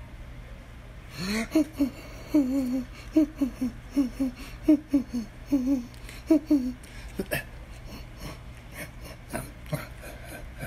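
A person humming a wavering tune in short, quick notes, breaking off about two-thirds of the way through, followed by a few light clicks and taps of handling noise.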